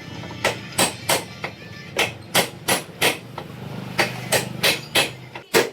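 Hammer blows on metal, about three a second with two short pauses, over a low steady hum: a new steering-head cone set (bearing race) being driven into a scooter's steering head.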